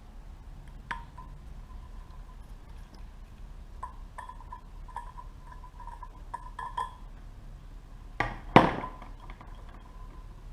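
Small metal carburetor parts and tools clinking: a single tap about a second in, a run of light clinks with a short ringing note in the middle, and a louder clatter a little past eight seconds.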